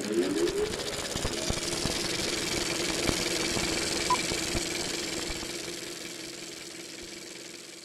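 Sound effect for the American Cinematheque animated logo. It starts suddenly, with a rising tone swelling over a hiss, then settles into a steady hum with a few sharp hits. It fades out near the end.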